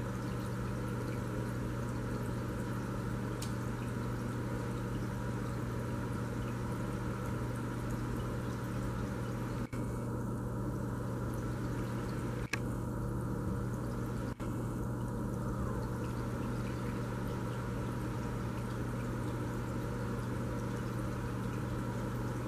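Aquarium equipment running: a steady trickle of moving water over a low, even hum. The sound drops out for an instant three times in the middle.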